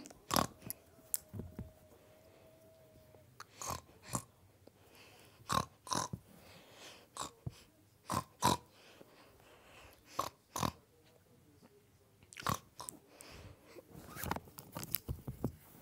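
Scattered, irregular clicks and taps of small plastic toy-figure pieces being handled and knocked together.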